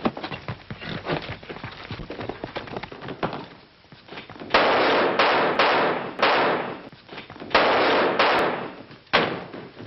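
Gunfire on an old film soundtrack: about seven shots in five seconds, each a sudden crack with a ringing tail. They follow a few seconds of quick, faint clicks and knocks.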